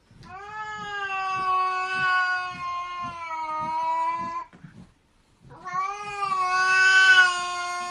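A cat yowling: two long, drawn-out wails at a fairly steady pitch, the first about four seconds long and the second, after a short break, about three.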